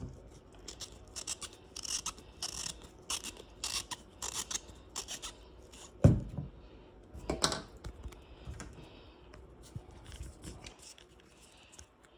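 Plastic screw cap being twisted off a small glue bottle: a run of short scratchy rasps, then a sharp knock about six seconds in and a smaller one soon after.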